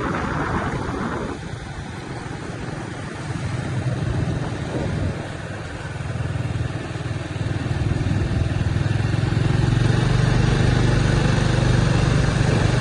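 Motorbike engine running as it is ridden slowly along a street; its low hum grows louder and steadier over the second half.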